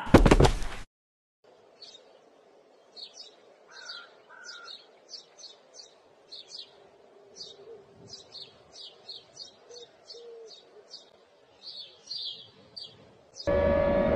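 A loud harsh burst lasting under a second cuts off abruptly. Then birds chirp softly in short calls, several a second, over a faint steady hum. Near the end a loud siren-like wail starts.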